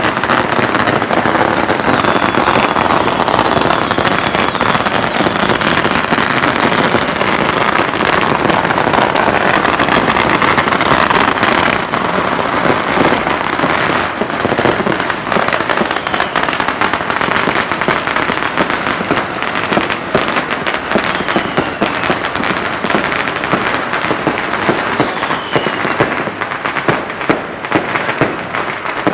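Fireworks and firecrackers going off in a dense, continuous crackle, thinning to separate sharp bangs near the end.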